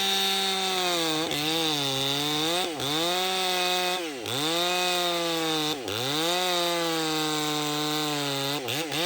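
Ported 60cc Echo CS620P two-stroke chainsaw running high, cutting red oak. Its pitch sags and dips sharply about five times, picking back up after each dip.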